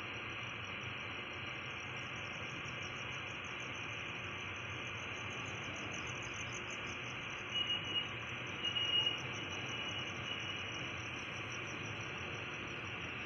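Crickets trilling steadily over the low, even running noise of a slow-moving train. A few short, louder high chirps stand out about halfway through.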